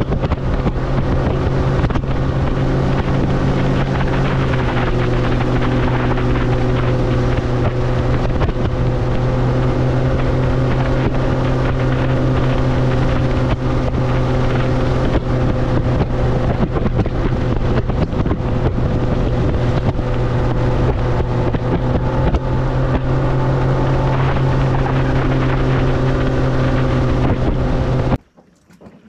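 Bass boat's outboard motor running steadily at speed across a lake, with wind rushing over the microphone and hull and water noise. The engine tone shifts slightly a few seconds in, then the sound cuts off suddenly about a second before the end.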